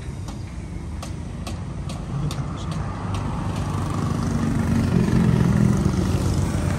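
Road traffic passing: a motor vehicle's engine hum grows louder, loudest about five seconds in, then eases off slightly. A few light clicks sound in the first three seconds.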